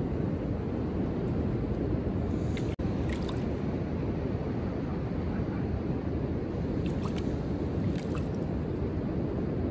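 Steady low rush of beach wind and distant surf, with a few faint soft ticks of wet sand slurry dripping from a hand onto the sand towers. The sound cuts out for an instant about three seconds in.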